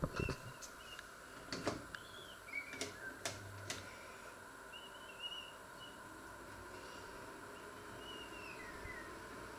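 Sharp clicks as a hand works an electric oven's control knob and buttons, over a steady faint hum. Short high bird chirps come and go in the background.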